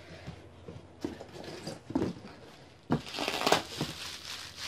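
Plastic packaging crinkling and rustling as it is handled, in short bursts, loudest about three seconds in.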